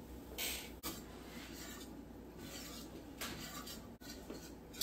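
Cornstarch poured into broth in a stainless steel pot, then a wire whisk stirring it in, faint scraping and swishing against the pot.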